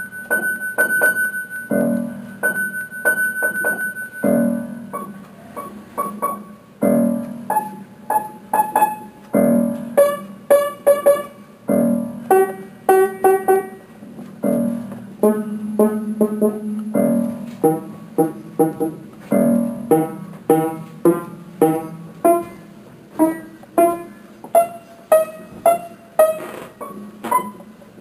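Background piano music: single notes struck one after another in a steady rhythm, each ringing and dying away, over a repeated low note.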